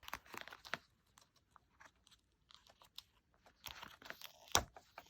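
Faint rustling and crinkling of paper with scattered small clicks and taps. One sharper tap comes about four and a half seconds in.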